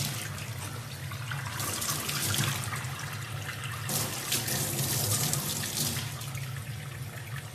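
Water from a tap running into a stainless steel sink, splashing over a young chimpanzee sitting in the stream, with a steady low hum underneath.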